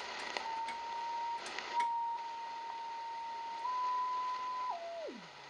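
Whistle of the R-390A receiver's crystal calibrator signal beating against the BFO, a steady tone near 1 kHz that shifts in small steps as the tuning is moved. Near the end it slides quickly down in pitch toward zero beat. A few sharp clicks and crackles over receiver hiss in the first two seconds.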